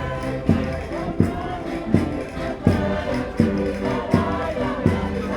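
Concertinas (Minho diatonic button accordions) playing a folk dance tune in sustained chords, with a strong steady beat about every three-quarters of a second.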